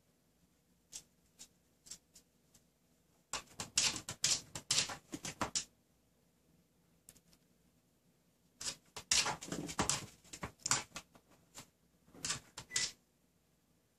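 A long-haired dog moving right against the phone, giving bouts of rapid crackling and scratching clicks: a long bout about three seconds in, another at about nine seconds, and a shorter one near the end, with a few single ticks between.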